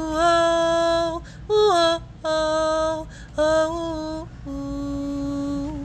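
A woman's voice singing long, held wordless 'oh' notes, unaccompanied, stepping between a few pitches with short breaks between phrases.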